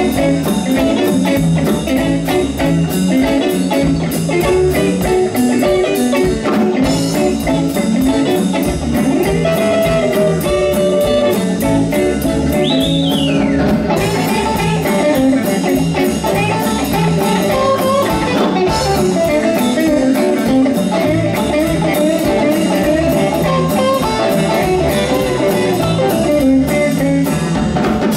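Live blues band playing an instrumental passage: two electric guitars, electric bass and a drum kit keeping a steady beat.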